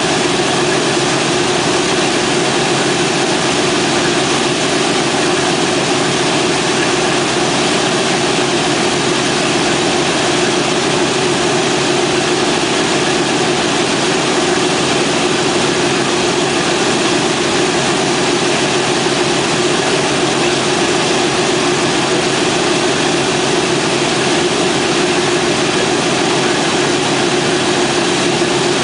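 Boeing B-17 Flying Fortress's Wright R-1820 Cyclone radial engines idling on the ground with the propellers turning, a steady, unchanging engine drone.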